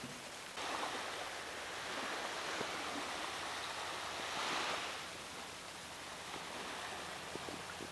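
Small waves washing gently onto a sandy beach: a faint, steady hiss of surf that swells a little about halfway through.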